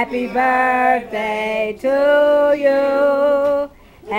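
Women singing together in slow, held notes, a phrase of about five notes that stops briefly near the end before the singing starts again.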